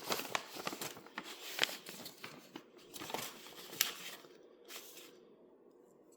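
Kit packaging being handled: quick crinkling and rustling, busy for about four seconds, then dying down.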